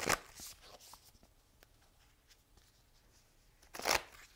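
Oracle cards being handled and shuffled: two short swishes of cards, one at the start and one near the end, with faint ticks of cards between.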